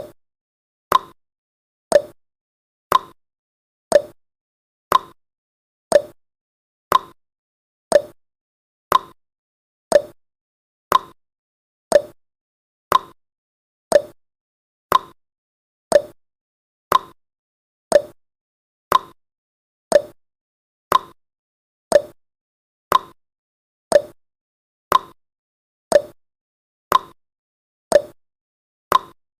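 Countdown timer's clock-tick sound effect: a short, sharp tick exactly once a second, each dying away quickly, with silence between.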